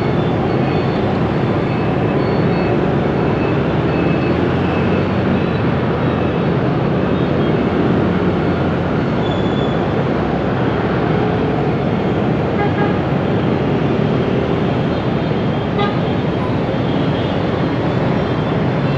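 Steady din of heavy street traffic in a jam, mostly motorbike engines running together, with a few faint horn beeps.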